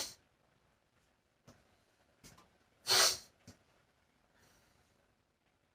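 A short, sharp breath out through the nose about three seconds in, among a few faint clicks and knocks.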